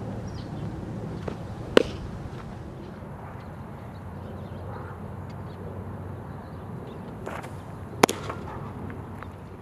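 Two sharp pops of pitched baseballs smacking into a catcher's mitt, a changeup about two seconds in and a fastball about six seconds later, over steady outdoor background noise.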